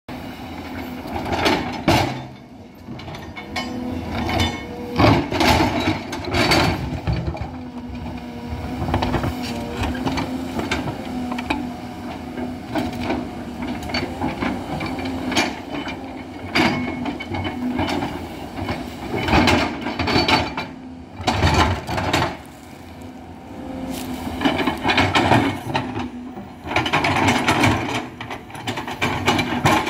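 Hidromek 220LC crawler excavator working: its diesel engine runs with a steady hum that swells and drops under load, with frequent irregular clanks and knocks from the machine at work.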